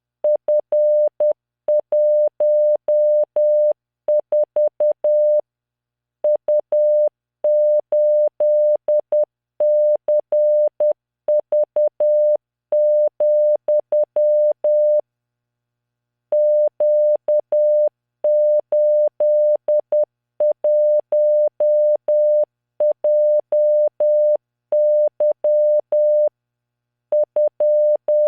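Morse code at 10 words per minute, generated by training software: a single steady 600 Hz tone keyed on and off in dots and dashes. It sends random five-character groups of letters, figures and punctuation, with short pauses between groups.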